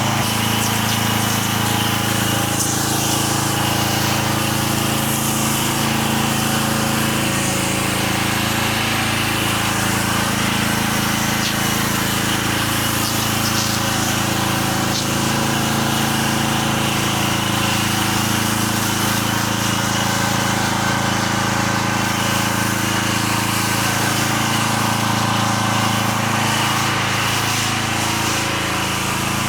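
Gas engine of a 4 GPM pressure washer running steadily with its revs turned down a little.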